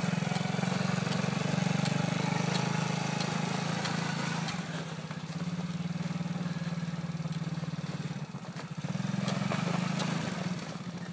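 Small engine of a child's youth ATV running at low, throttle-limited revs as it is ridden through snow. It runs steady for the first few seconds, eases off about four and a half seconds in and again around eight seconds, picks up briefly, then drops back near the end.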